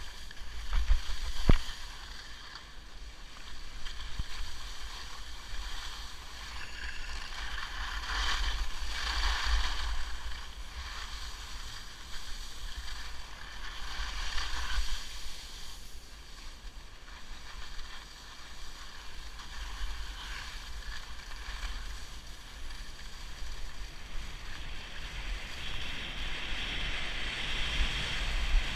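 Skis sliding and scraping over packed snow on a downhill run, the hiss swelling several times as the skier turns, over a low buffeting of wind on the microphone. A single sharp click about a second and a half in.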